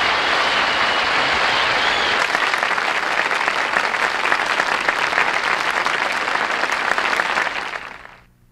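Audience applauding, dense steady clapping that fades out near the end.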